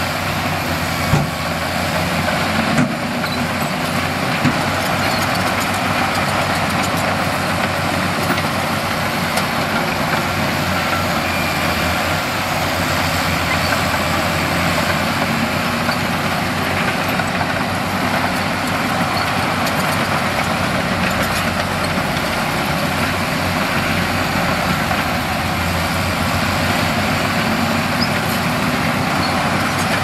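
Heavy earthmoving machine's diesel engine running steadily, with a few sharp knocks in the first few seconds.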